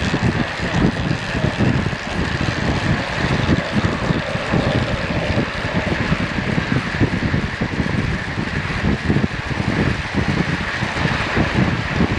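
Wind rushing and buffeting over the microphone of a camera on a track bike moving at about 28 mph, a steady hiss with gusty low rumbling throughout.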